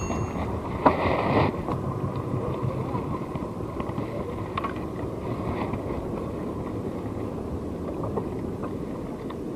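Small outrigger fishing boat's engine running steadily under wind and water noise, with a brief hiss about a second in and a few faint clicks.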